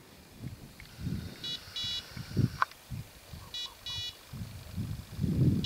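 Electronic beeper collar on a pointing dog giving short high double beeps about every two seconds, the point-mode signal that the dog is standing on point. Low rustling and thumps underneath, louder near the end.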